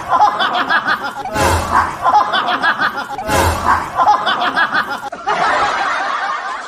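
Laughter in quick, rapid ha-ha pulses, coming in three rounds about two seconds apart, each opening with a short rush of noise, then a denser, steadier stretch of laughter from about five seconds in.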